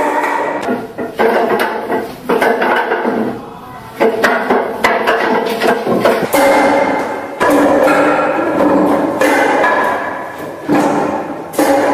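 Quick, irregular wooden knocks of forearms and hands striking the arms of a Wing Chun wooden dummy, over background music.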